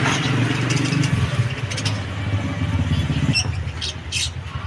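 Steady low engine rumble, like road traffic or a motor running. Several short, high bird chirps come in over it in the second half.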